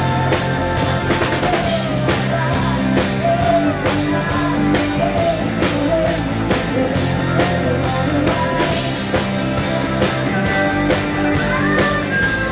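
Live rock band playing, with a steady drum-kit beat and guitar.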